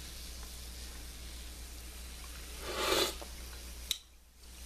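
Cream sauce simmering quietly in a stainless steel pan, with a short wet slurp about three seconds in as a fingerful of the sauce is tasted.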